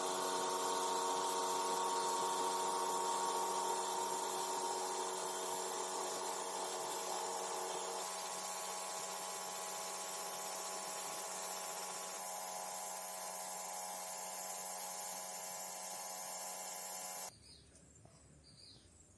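An electric power tool running steadily with a whining motor and a hissing grind, then stopping suddenly near the end.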